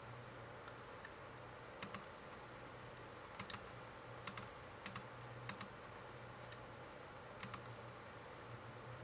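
Six sharp double clicks, each a press and release of a computer mouse button, spaced irregularly as a number is clicked into an on-screen keypad. A faint low steady hum runs beneath.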